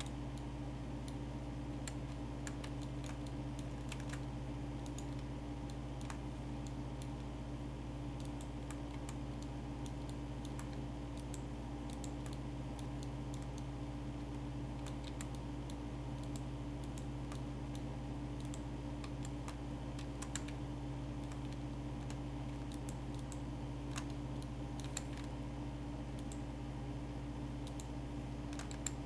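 Computer keyboard and mouse clicking in scattered single presses over a steady low hum.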